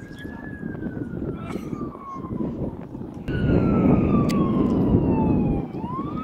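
A siren wailing, its pitch sliding slowly up and then down. About halfway through it jumps higher and louder over a loud low rumble, then falls away and starts to rise again near the end.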